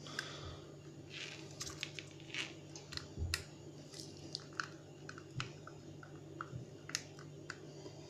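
Light scattered clicks and rustles of hands handling a small plastic mini vacuum cleaner and its nozzle.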